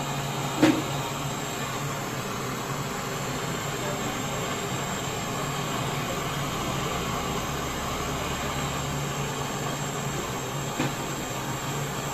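Gas brazing torch flame hissing steadily while a copper refrigerant line is brazed onto a freezer compressor. A sharp click comes about a second in and a fainter one near the end.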